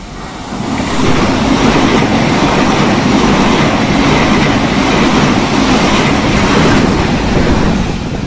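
Frecciarossa 1000 (ETR400) high-speed electric train passing through the station at speed: a loud rush of wheels on rail and air. It builds quickly about a second in, holds steady, and eases off near the end.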